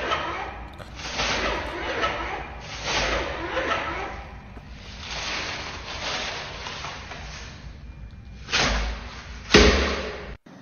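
A push-button wall soap dispenser pumped over and over, a run of clunks about a second apart, with two louder thumps near the end.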